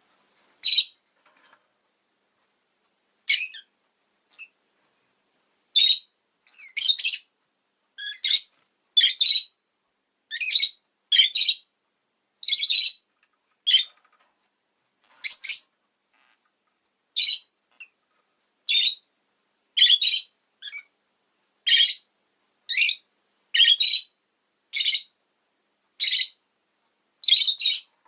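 Rosy-faced lovebird calling in short, high-pitched chirps, roughly one a second, with brief silences between them.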